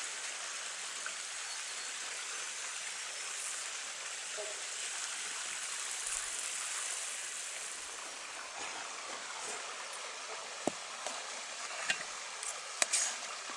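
A steady hiss, with a few sharp clicks near the end of a metal fork against a metal plate as cooked steak is cut.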